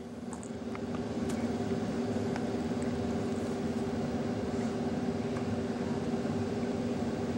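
A steady mechanical hum holding two steady tones, with a few faint ticks over it.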